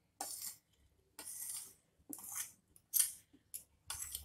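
A spoon scraping finely grated cauliflower off a paper plate into a glass bowl, in about five short strokes roughly a second apart.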